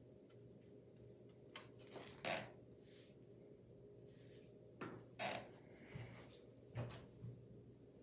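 Handling of watercolour painting tools on a plastic-covered table: a few short knocks and brushy scrapes, the loudest about two and five seconds in, over a faint steady hum.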